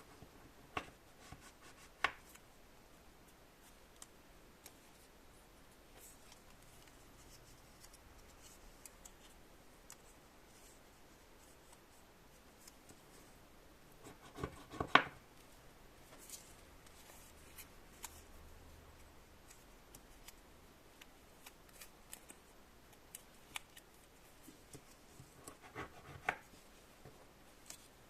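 Scattered small clicks and taps of close handwork in a quiet room. The loudest is a quick cluster about halfway through, with another cluster near the end.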